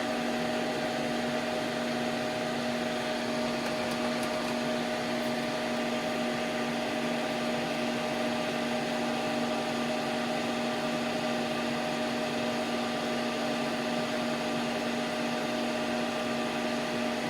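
Steady whirring noise of a small electric fan or motor with a constant low hum, unchanging in level.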